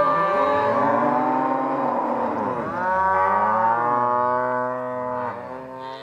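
A herd of long-horned cattle mooing, several animals at once: long, drawn-out calls that overlap, one starting as another fades.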